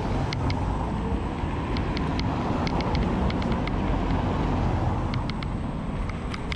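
Xiaomi M365 Pro electric scooter riding along paved sidewalk: steady wind rush and tyre rumble on the microphone, with scattered light ticks a few times a second.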